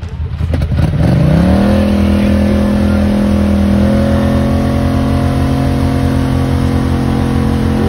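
ATV engine revving hard and held at high revs as the quad churns through a deep mud hole with its wheels spinning and throwing mud. The pitch climbs over the first second or so, then holds steady, rising a little about halfway through.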